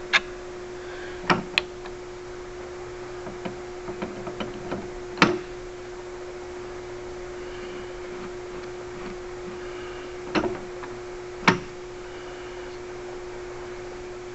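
Scattered sharp knocks and clicks of wood parts and tools being handled and set in place on a workbench, about half a dozen, over a steady hum.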